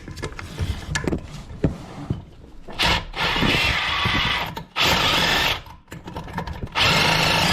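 Cordless drill with a right-angle attachment and socket running in three short bursts on a toilet's tank bolt nuts, with small knocks and clicks of handling between them. The bolts are rusted and jammed.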